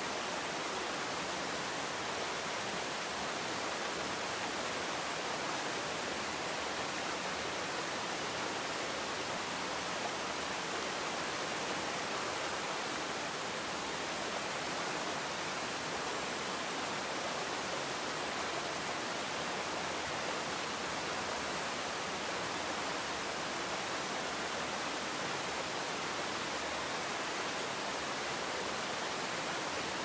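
Waterfall pouring steadily into a rocky pool: an even, unbroken rush of water.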